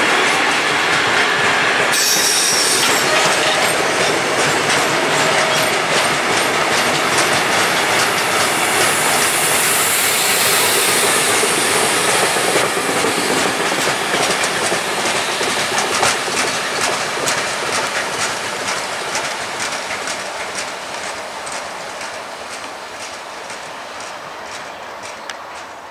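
A long freight train of open-top gondola wagons rolling past, its wheels clattering over the rail joints with high wheel squeal now and then. The sound fades steadily over the last ten seconds or so as the end of the train passes and draws away.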